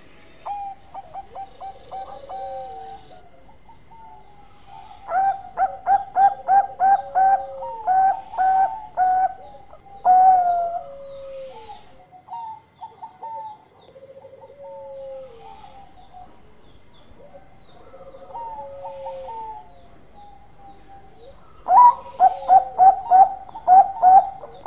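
Zebra dove (perkutut) singing: soft rolling coos broken by two runs of rapid, louder staccato notes, one about five seconds in and one near the end.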